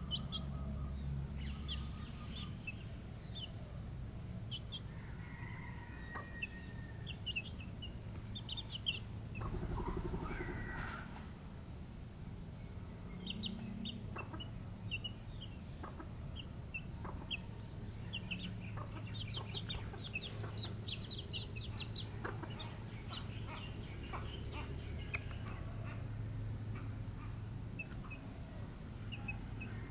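Young chickens peeping in short, high chirps scattered throughout, with some clucking, over a steady high-pitched whine.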